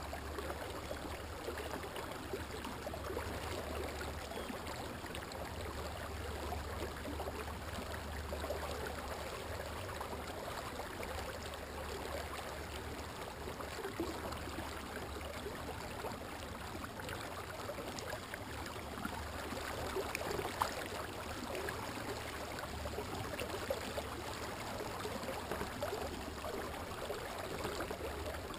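Water gurgling and rushing steadily along the hull of a Pelican Catch 120 kayak as it runs under its 24 lb thrust Minn Kota electric trolling motor, with a steady low hum underneath.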